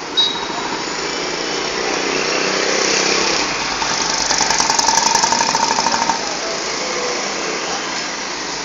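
A small engine running close by over road noise, growing louder to a peak about halfway through with a rapid, even pulsing, then easing off.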